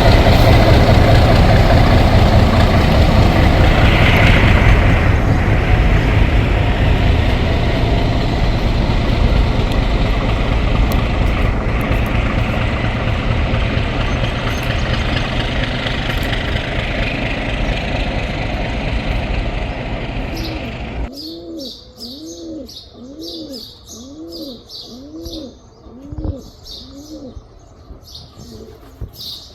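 Train running on the rails with a loud, steady rumble that slowly fades, then cuts off abruptly about twenty seconds in. Pigeons then coo over and over, with small birds chirping.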